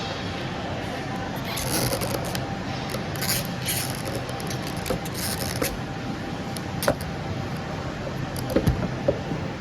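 Light metallic clinks and rattles of small parts being handled, with several short scraping hisses and a few sharp clicks in the second half.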